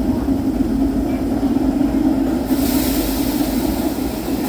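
On-board sound of an Osaka Metro 30000A series electric train: a steady, loud hum and rumble. A higher hiss joins about halfway through.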